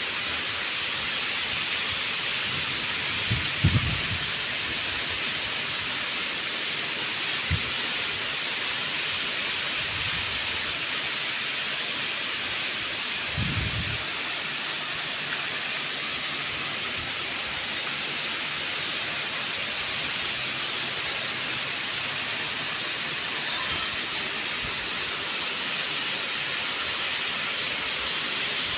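Steady rain falling, an even hiss of the downpour. A few brief low thumps break through, the loudest about four seconds in and others near eight and fourteen seconds.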